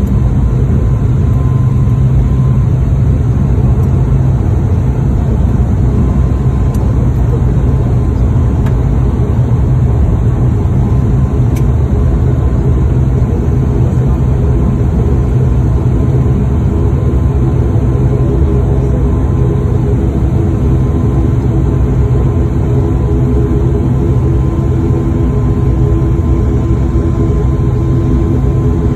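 Turboprop airliner engines and propellers droning steadily, heard inside the cabin as the aircraft rolls along the runway after landing. A humming propeller tone grows clearer past the halfway mark.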